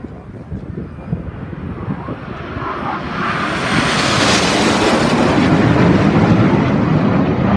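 Aircraft flying past: its engine noise swells from about three seconds in, is loudest and brightest near the middle, then stays loud.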